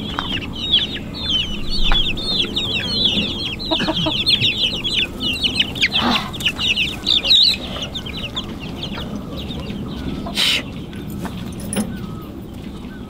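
Chickens clucking, with a dense flurry of short, high chirps for the first seven seconds or so and a brief harsh call about ten seconds in.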